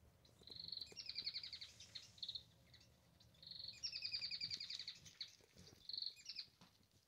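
A small bird singing two trilled phrases, each a couple of seconds long, made of rapid high repeated notes with about a second's pause between them.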